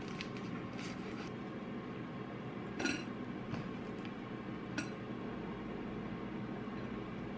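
Food-prep sounds of a knife working through red cabbage on a wooden cutting board, then the shreds being gathered into a glass bowl. Two sharp clinks come about three and five seconds in, over a steady low background noise.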